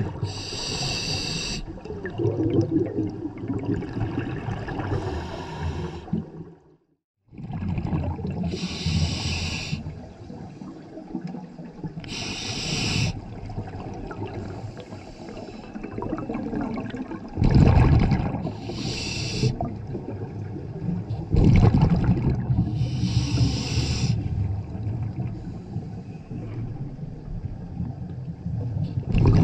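Scuba regulator breathing heard underwater: hissy bursts of exhaled bubbles every few seconds over a steady low rumble. The sound drops out completely for under a second about a quarter of the way in.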